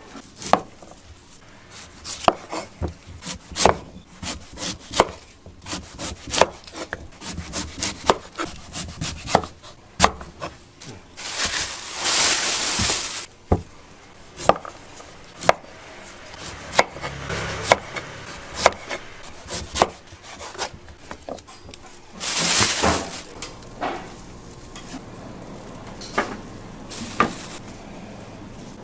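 Kitchen knife chopping on a wooden cutting board: a run of irregular knocks, one or two a second. Two short bursts of hissing noise break in, about twelve and twenty-two seconds in.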